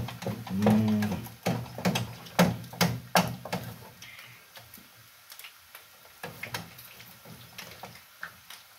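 A wooden cooking stick knocking against a metal pot as ugali is stirred and turned: a run of sharp knocks, about two to three a second, thinning to occasional light taps after about three and a half seconds. A short hummed voice about a second in.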